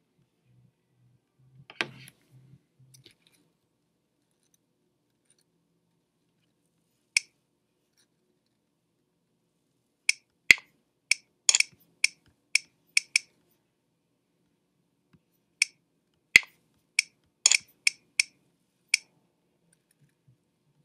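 Computer mouse clicking while answering an on-screen quiz: a single sharp click about seven seconds in, then two runs of eight or nine quick clicks, one near the middle and one later on. A soft knock with a low rustle comes about two seconds in.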